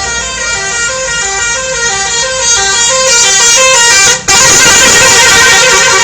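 Telolet bus horn: a multi-tone air horn on an intercity bus playing a quick melody of stepped notes. It breaks off for an instant about four seconds in, then comes back louder.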